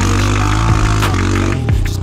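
Electronic music with a deep, steady bass and a regular beat, over a Yamaha Raptor 700 quad's engine revving as it slides through mud.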